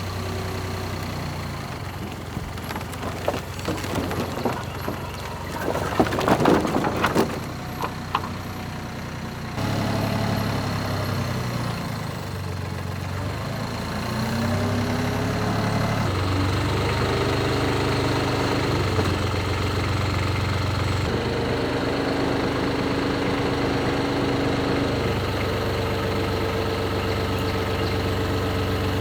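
Engine running steadily, with irregular metal clanks and knocks in the first several seconds, then a steadier, louder drone.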